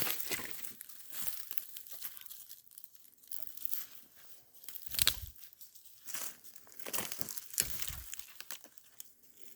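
Dry leaf litter and brush crunching and crackling underfoot in irregular steps, with a few louder snaps of twigs or branches.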